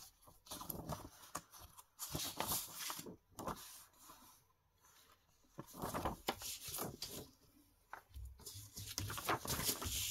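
Sheets of printed paper rustling as they are handled and flipped through, in irregular bursts with a quieter pause around the middle.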